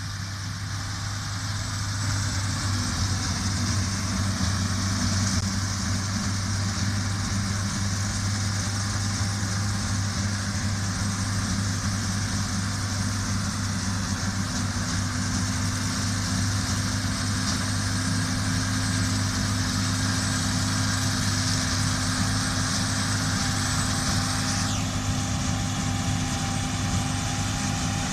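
John Deere S680 combine harvester running steadily while harvesting, a deep even engine drone with a high hiss of machinery over it. Part of the high hiss drops away near the end.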